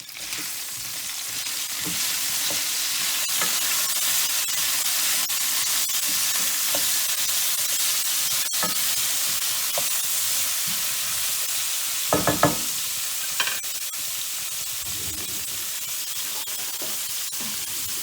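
Fennel stew sizzling steadily in a frying pan, the hiss building over the first couple of seconds. A few short knocks of a utensil come about two-thirds of the way through.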